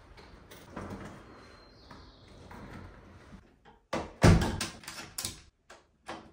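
A wooden apartment front door being opened and then pushed shut with a loud thud about four seconds in. A quick run of sharp clicks from the knob and lock follows.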